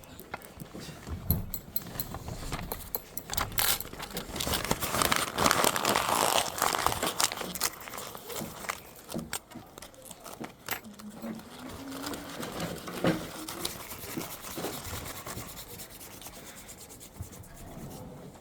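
Close-miked ASMR handling sounds: a run of clicks and taps with rustling and scraping, loudest about five to seven seconds in.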